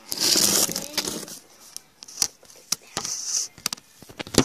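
Rustling and knocks of a phone being handled and moved around right against its microphone. There is a loud rush of rustle in the first second, scattered small knocks after it, and a sharp knock near the end.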